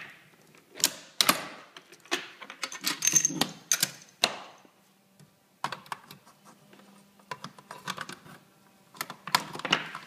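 Irregular sharp clicks and clatters of plastic magazine parts and linked rifle cartridges being handled and snapped together on a workbench while a DPM pancake magazine is assembled, with a quieter lull in the middle.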